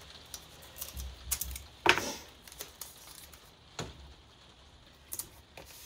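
Masking tape handled: pulled off the roll and pressed down along the edge of a sheet of paper on a board, giving scattered soft taps and crackles, the loudest about two seconds in.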